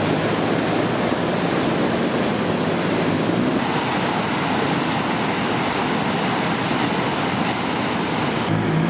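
Steady, loud rush of a mountain river's flowing water, an even roar that ends abruptly near the end.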